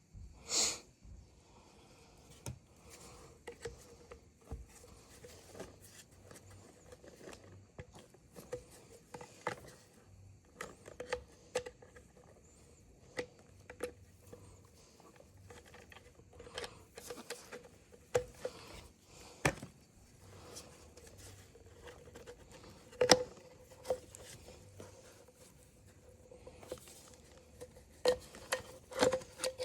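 Irregular small clicks, taps and knocks of hand tools and chainsaw parts being handled during a repair, over a faint steady hum. A brief hiss comes about half a second in.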